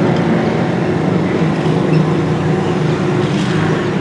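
Diesel locomotive engine running at a steady idle: a loud, even hum that holds one pitch throughout.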